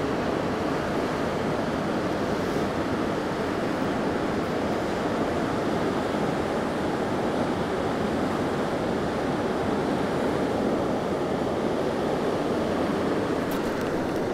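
Steady rush of a large, fast-flowing river.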